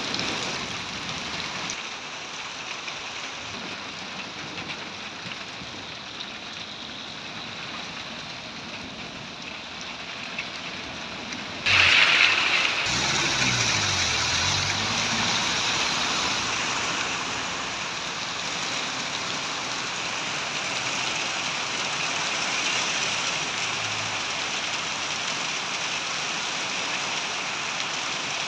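Steady heavy rain hissing on a paved lane and wet ground. About halfway through comes a sudden loud rush, then a minibus engine runs close by, rising and falling in pitch for a few seconds as the van pulls away, while the rain goes on louder.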